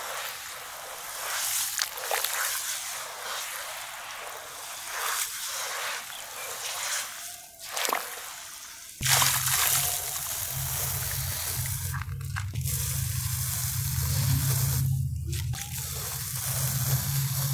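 Hands squishing and sloshing wet crumbled stone and dirt in a tub of water, with many small crackles and splashes. About nine seconds in, this gives way to dry crumbled grit pouring into the water with a steady hiss over a low hum.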